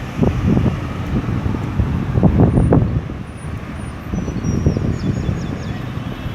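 Road traffic going by, a mix of car and truck engines and tyre noise, with wind buffeting the microphone. It swells loudest between about two and three seconds in.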